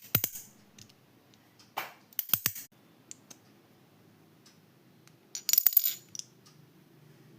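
Slider magnetic fidget toy being played with: the metal pieces snap together in clusters of sharp clicks with a bright metallic ring, the loudest cluster about two-thirds of the way through.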